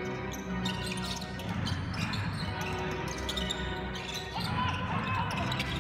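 Basketball bouncing on the court with scattered short knocks during a stoppage, while music plays in the hall.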